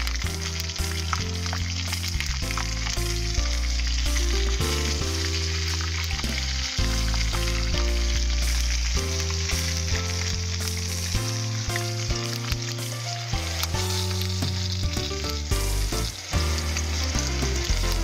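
Hot oil sizzling and bubbling steadily as a batch of small whole fish deep-fries in a small saucepan, with background music carrying low notes underneath.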